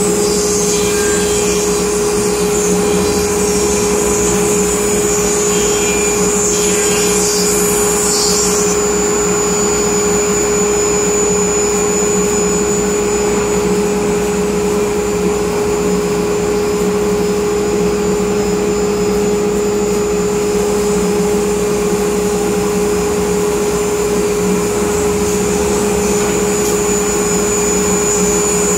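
Gerber Sabre 408 CNC router planing its spoilboard: the spindle and surfacing cutter running steadily under load, with a dust collector drawing air through the hose at the cutter. A loud, even rushing noise with a steady high-pitched whine throughout.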